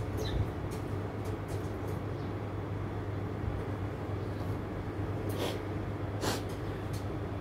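Steady low mechanical hum with a wash of background noise, and a few short, faint high chirps, two of them clearer about five and six seconds in.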